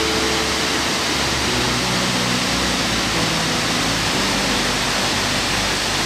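A 40 m waterfall pouring down a rock face into its plunge pool: a steady, dense rush of falling water.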